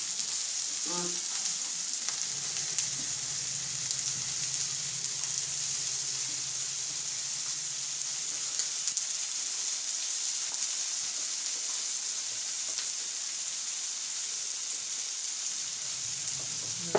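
Tomatoes, peppers and mushrooms sizzling steadily on a hot electric plancha griddle, with a few light clicks.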